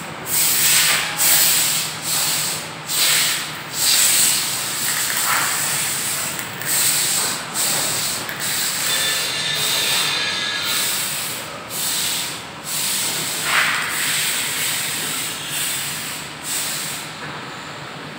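Workshop metalworking noise: a steady harsh hiss with repeated rasping surges, coming about once a second early on, and a faint thin whine in the middle.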